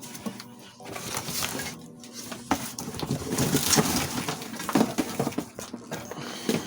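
Irregular rustling with scattered clicks and knocks, the noise of things being handled.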